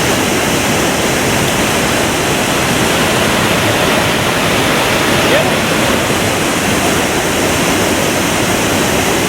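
Waterfall pouring into its plunge pool: a loud, steady, unbroken rush of falling water.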